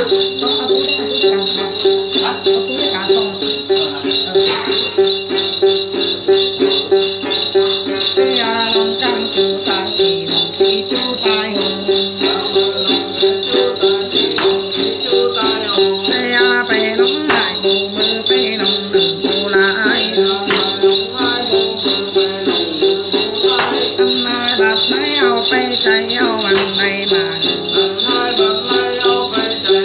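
Then ritual music: a woman sings a chant to her own đàn tính gourd lute while a bunch of small jingle bells is shaken steadily throughout.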